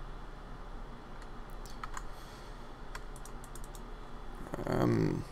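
Scattered computer keyboard key presses and mouse clicks, a few single taps and a quick cluster about two seconds in. Near the end, a brief wordless vocal sound from the narrator is the loudest thing.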